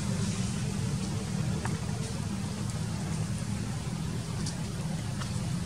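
Steady low outdoor rumble with a few faint, short high ticks scattered through it.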